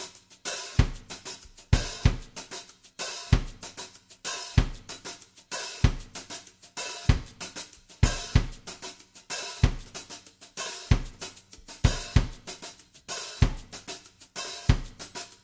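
Background music: a drum-kit beat of hi-hat and cymbal strikes over a kick drum thumping about once a second.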